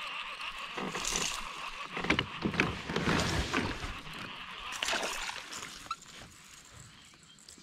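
A small bass splashing at the surface as it is reeled to the kayak and swung out of the water, dripping, with clicks and knocks from the baitcasting reel and the boat. The sounds die down over the last second or so.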